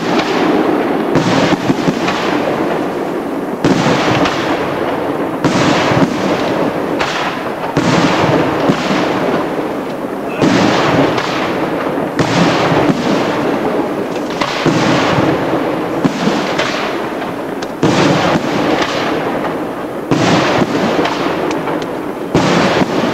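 Fireworks display of aerial shells bursting one after another without a break: a continuous dense crackling, with a sharp loud report every second or two.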